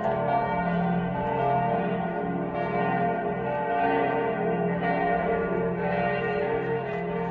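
Church bells pealing, several bells ringing at once with overlapping tones that swell and fade about once a second.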